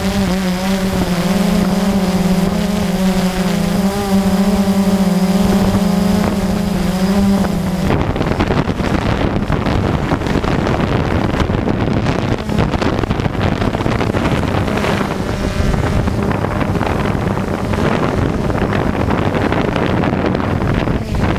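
Blade quadcopter's electric motors and propellers heard from the drone's own onboard camera: a steady hum with a slightly wavering pitch. About eight seconds in the hum gives way to a rough rushing noise of prop wash and wind as the drone comes down onto the grass.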